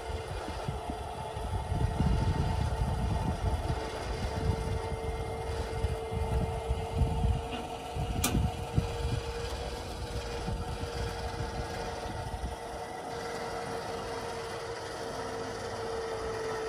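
Motorcycle trailer's loading mechanism running with a steady mechanical hum as its cradle lowers the motorcycle, over an uneven low rumble. There is one sharp click about eight seconds in.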